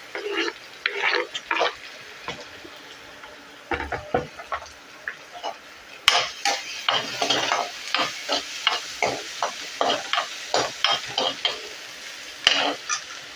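Chopped capsicum, carrot and onion frying in hot oil in a pan over full flame. A spatula scrapes and taps against the pan as the vegetables are stirred, quickly and repeatedly in the second half with a louder scrape near the end.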